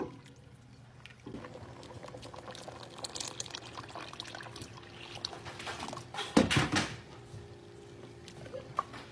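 Liquid sounds from a steel pot of thick soup on the stove: bubbling and sloshing with scattered small pops. A steady hum joins about a second in, and there is one louder splash-like burst about six and a half seconds in.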